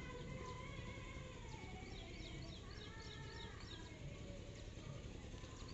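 Faint background birds chirping in quick repeated short calls over low ambient noise.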